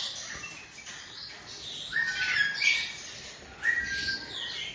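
Several short bird chirps and calls, clustered about two seconds in and again near four seconds.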